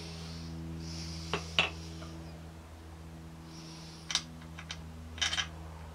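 Steel bolts clinking sharply a few times against an aluminium moped engine crankcase as they are set into their holes by hand, over a steady low mechanical hum.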